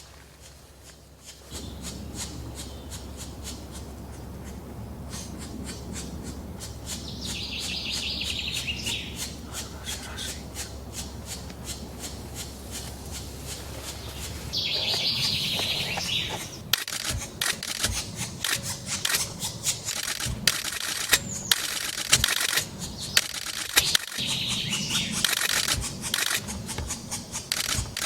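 Black woodpecker nestlings begging in three short chattering bouts, with many sharp clicks throughout.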